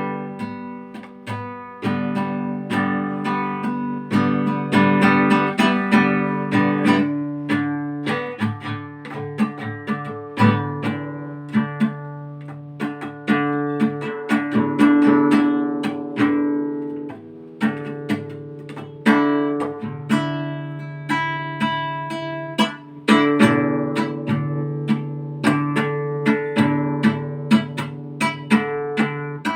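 Solo acoustic guitar playing an instrumental tune, strummed chords mixed with picked notes that ring and fade.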